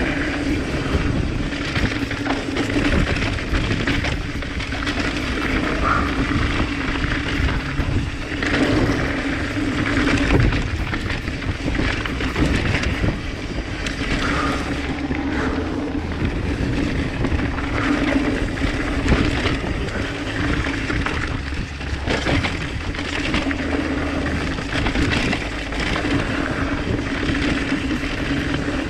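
Mountain bike descending rough dirt singletrack: rushing wind and tyre noise on dirt and loose rock, with frequent short rattles and knocks from the bike over bumps. A buzzing hum comes and goes.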